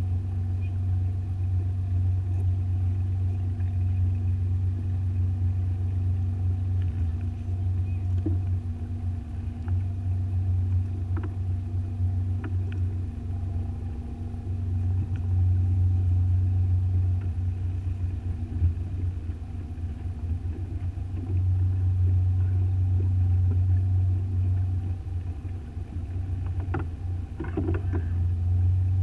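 Motorboat engine running steadily while under way: a low, even rumble with faint steady whining tones above it, swelling and easing a little. It is heard from a camera mounted on the boat's own cabin roof.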